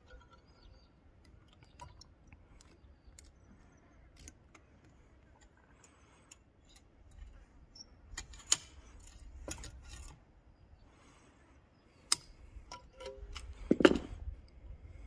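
Safety wire pliers clicking and snapping as steel safety wire on an aircraft engine fitting is pinched, locked and twisted. The sharp metallic clicks are scattered, with the loudest in the second half.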